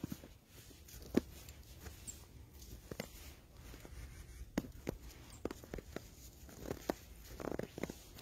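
Faint rustling and scattered light taps, a few of them sharper, over a low rumble.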